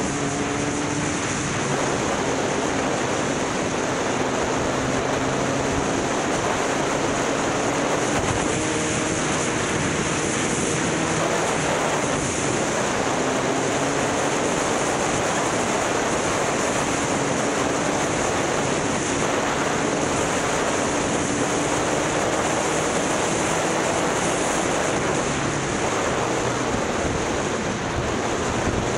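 Motorcycle engine running under heavy wind noise on the microphone, its note drifting slowly up and down with the throttle.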